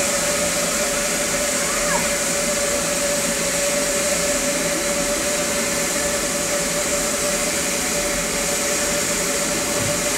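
Steam locomotive Mount Lyell No. 3 venting steam: a steady hiss with a steady whistling tone beneath it.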